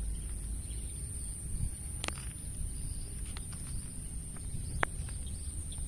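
Outdoor field ambience: wind rumbling on the microphone under a steady high-pitched drone, with two sharp clicks, one about two seconds in and one about five seconds in.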